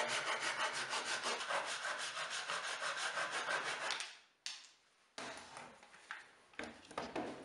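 Japanese dozuki pull saw cutting through the corner of a birch plywood strip in quick, even strokes, about five a second, stopping about four seconds in. A few short knocks and clatters follow as the clamp is moved.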